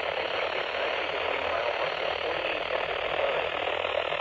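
Steady radio static hiss from a weather radio receiver, with no voice or alert tone over it.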